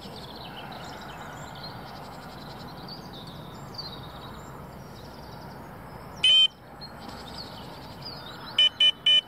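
Electronic carp bite alarm beeping: one longer beep about six seconds in, then a quick run of short beeps near the end. Small birds chirp in the background.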